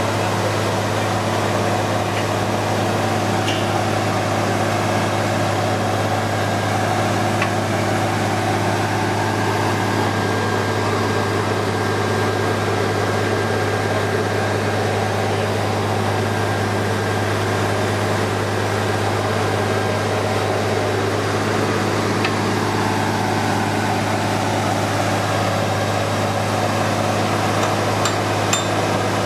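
Truck-mounted water-well drilling rig running steadily as it drills, a constant low engine drone that does not change.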